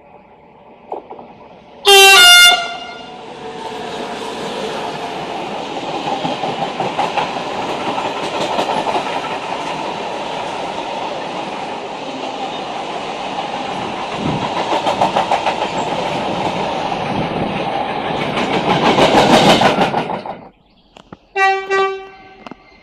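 A Renfe train sounds a short horn blast, then passes with a steady rumble and a rapid clickety-clack of wheels over rail joints for about seventeen seconds, stopping abruptly. A second short horn blast sounds near the end.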